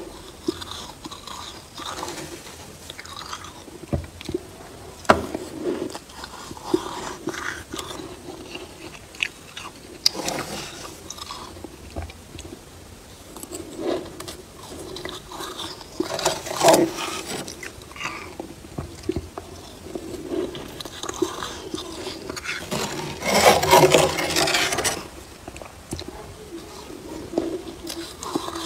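Soft freezer frost being crunched and scraped close to the microphone, in irregular crackly bursts with a few sharp clicks. The longest and loudest stretch of crunching comes about three-quarters of the way through.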